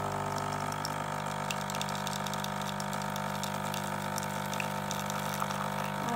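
Nescafé Dolce Gusto capsule machine's pump humming steadily while it dispenses a thin stream of vanilla milk into a mug, with small irregular ticks and spatters over the hum.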